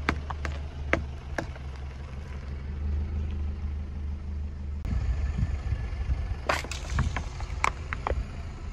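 A car creeps over objects on asphalt with a low steady engine rumble and a few sharp clicks in the first second and a half. About five seconds in the sound changes to a rougher rumble, and a run of sharp cracks follows as a plastic toy container is crushed under the tyre.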